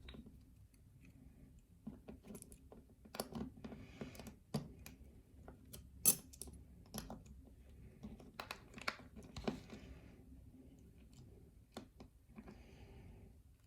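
Light metallic clicks, taps and short scrapes of a challenge lock and small lock-picking tools being handled while the lock is taken apart, with the sharpest click about six seconds in.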